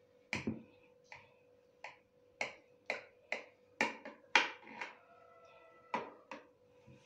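Kitchen knife cutting through a chocolate-glazed biscuit cake in a glass baking dish, the blade clicking and tapping against the glass about a dozen times at uneven intervals.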